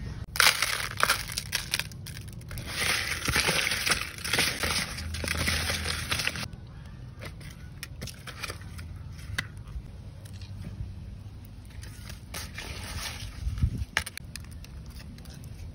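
Live eels being handled in plastic basins with coarse salt, making rough crunching and scraping for the first six seconds or so, then quieter scattered crackles and clicks.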